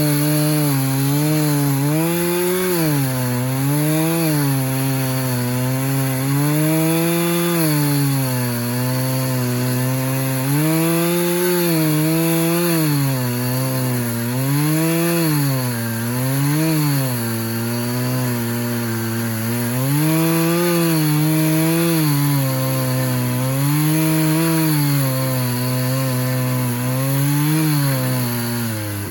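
Stihl MS 400 two-stroke chainsaw running at full throttle in a Granberg chainsaw mill, ripping a board from the cants. Its engine speed sags and recovers every couple of seconds as the chain works through the wood, and it drops off right at the end as the throttle is released.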